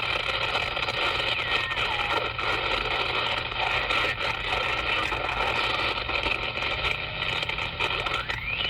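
CB radio receiver (Cobra 200 GTL DX) putting out a steady hiss of channel noise and splatter from adjacent-channel interference. A whistling tone slides down in pitch about two seconds in, and another slides up near the end.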